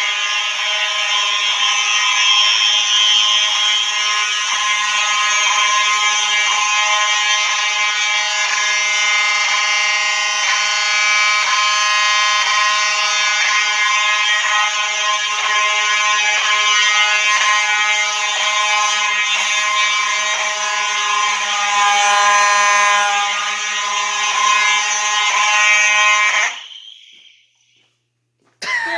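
Several fire alarm horns sounding together in one loud, steady blend of tones, which cuts off suddenly about 26 seconds in.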